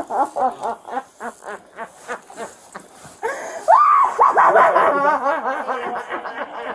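A woman crying out without words while being held down: about three seconds of quick, pulsing laugh-like cries, then loud wailing screams that rise and fall in pitch.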